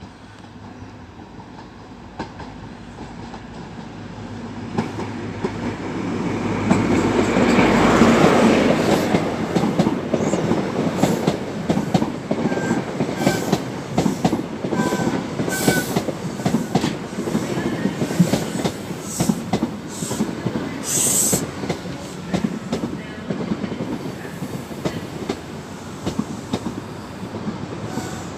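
High Speed Train (InterCity 125) running along the platform. The power car's diesel engine grows louder to a peak about eight seconds in, then the coaches' wheels clatter over the rail joints, with a few brief squeals.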